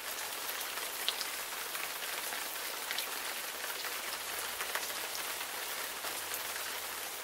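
A steady crackling hiss, like rain pattering on a surface, with scattered small clicks. It starts and stops abruptly.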